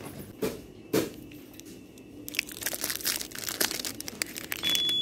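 Two knocks as a cardboard cereal box is moved on a shelf, then the crinkling of a foil-wrapped turrón bar being picked up and handled. A steady high beep starts near the end.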